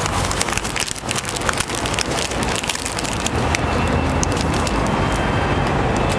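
Paper wrapper crinkling and rustling in quick crackly clicks as a folded crepe is wrapped in it, over a steady low background rumble.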